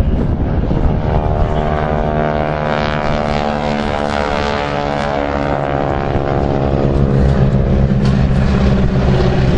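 Propeller aircraft flying past, its engine drone a steady pitched note that fades out after the middle, leaving a low rumble.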